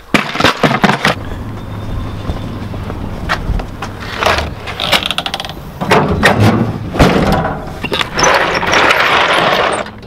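Plastic parts organizer boxes clicking and clattering as they are handled, then a pickup truck tailgate handle pulled and the tailgate clunking open about seven seconds in, followed by a long scraping slide near the end.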